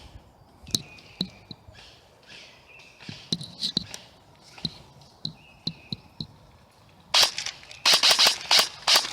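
Airsoft guns firing: scattered sharp single cracks, then a loud run of rapid cracks in the last two seconds.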